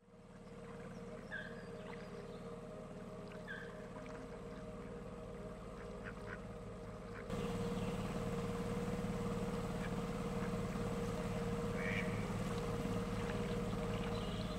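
Waterfowl calling a few times, short duck-like calls, over a steady low hum that gets louder about seven seconds in.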